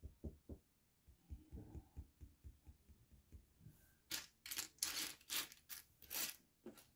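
Small plastic building bricks clicking and clattering as a hand rummages through a loose pile of them: light taps at first, then a busier rattle of pieces from about four seconds in.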